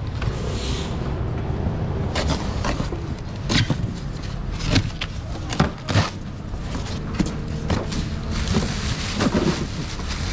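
Steady low rumble, with about a dozen sharp knocks and clicks scattered through it.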